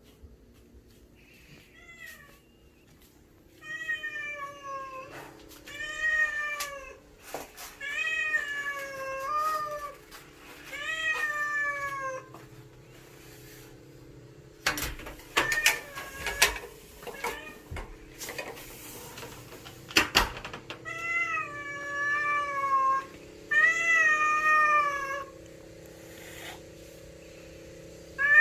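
Stray cat meowing again and again, food-begging calls that each rise and then fall in pitch, in two runs of meows. A few sharp clicks and knocks come between the runs, over a steady low hum.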